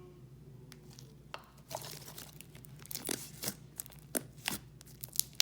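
Thick, glossy slime filled with foam beads being squeezed and worked by hand, giving irregular crunches and sharp bubble pops. It is fairly quiet for about the first second, then the pops come quickly and unevenly.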